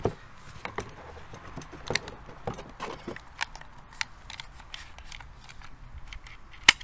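Irregular plastic clicks and ticks from handling an airsoft carbine's polymer stock and its battery plug and lead as a LiPo battery is connected, with one sharp click near the end.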